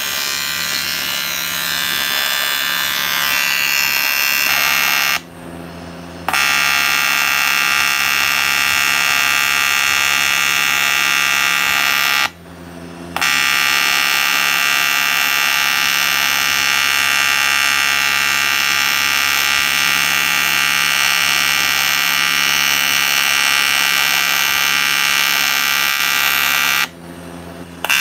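TIG welding arc buzzing steadily. It stops briefly three times, about five seconds in, about twelve seconds in and just before the end, as the welder pauses the arc between passes.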